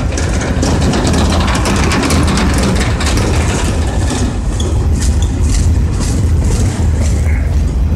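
Boxcars of a freight train rolling past close by: a steady, heavy rumble of steel wheels on rail, with repeated clicks and clanks from the wheels and couplers.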